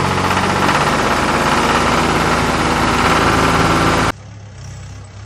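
Tractor engine running steadily. About four seconds in it cuts off abruptly and a much quieter, duller sound takes over.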